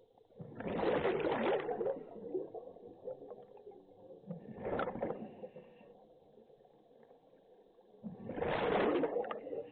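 Scuba diver's exhaled breath bubbling out of the regulator underwater: two long gurgling bursts, about half a second in and near the end, with a shorter burst in the middle.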